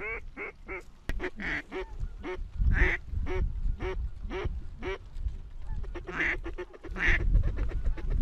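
A run of mallard-style quacks, about two a second, for the first five seconds. After a short gap come two louder quacks near the end. Wind rumbles on the microphone underneath.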